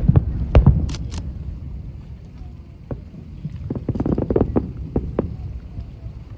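Aerial fireworks bursting: a rapid series of deep booms and sharp cracks, densest in the first second, with two sharp high cracks about a second in and another busy cluster of bursts around four seconds in.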